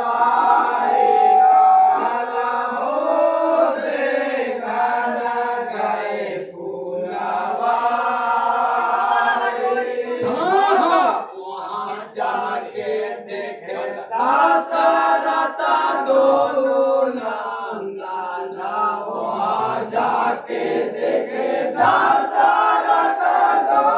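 A group of men singing a traditional Holi folk song together, loud and full-voiced, with dholak drum beats under the singing.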